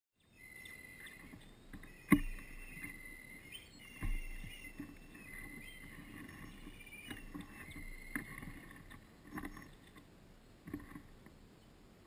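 A secretary bird shifting on its nest of sticks and dry grass close to the camera: rustling and scattered knocks, two of them sharp and loud, the first about two seconds in and the second about four seconds in. Steady high whistling tones run underneath.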